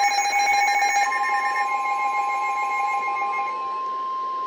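Emergency Alert System attention signal: a steady electronic alarm of held tones. About a second in it shifts to a single slightly higher tone, while the lower tone fades out over the next few seconds. It is the alert that introduces a new warning broadcast.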